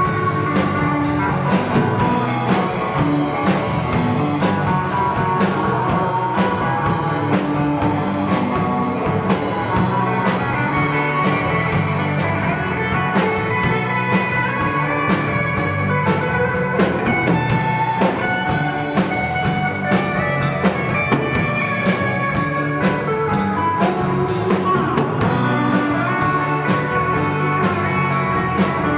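Live rock band playing: two electric guitars, an electric bass and a Mapex drum kit, with a steady beat.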